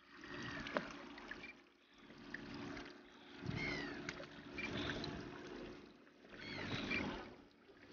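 Water slapping and lapping against a small boat's hull in uneven washes about a second long, over a faint steady hum. A few short high squeaks come through near the middle and again near the end.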